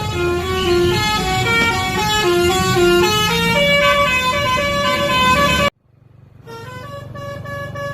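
Bus 'telolet basuri' musical horn playing a quick tune of short stepped notes, with a low steady hum underneath. It cuts off abruptly about six seconds in, and another horn tune starts up a moment later.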